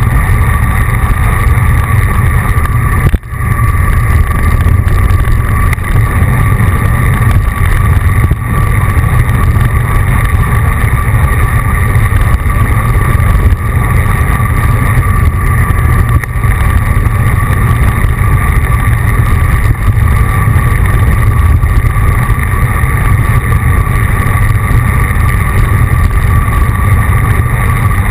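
Loud, steady wind rush on a moving camera's microphone with road noise during a road-bike ride, briefly dropping away about three seconds in.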